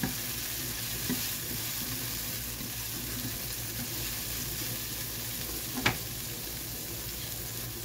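Diced bell pepper and minced garlic sizzling in olive oil in a frying pan, stirred with a black spoon that scrapes and pushes the pieces around. There is a steady, even sizzle, with one sharp click about six seconds in.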